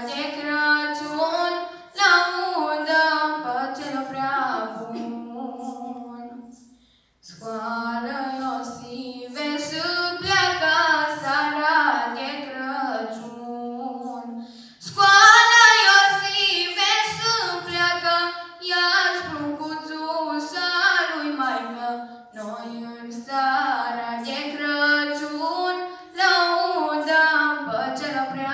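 A group of women singing a Romanian Christmas carol (colindă) a cappella in sustained phrases. There is a short break for breath about seven seconds in, and the singing grows louder about halfway through.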